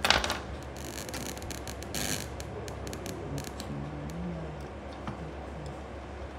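Small clicks and rustles of electronic parts being handled: transistors picked from a plastic parts box and a small circuit board lifted and turned over. A sharp rustling clatter comes right at the start and again about two seconds in, over a steady low hum.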